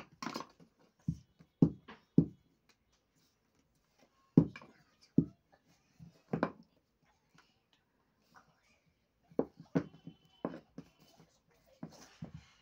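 Hands patting and slapping rounds of roti dough flat on a wooden board: short irregular slaps, sometimes in quick pairs, with pauses of a second or two between.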